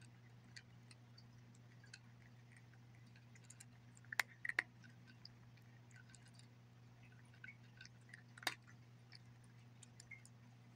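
Domestic cat crunching dry kibble: faint scattered crunches and clicks, with a few sharper cracks about four seconds in and again past eight seconds, over a steady low hum.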